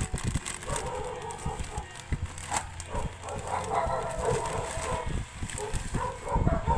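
Plastic courier pouch and bubble wrap rustling and crinkling as hands open the bag and pull the wrapped package out, with handling bumps. A wavering pitched sound runs underneath from about a second in.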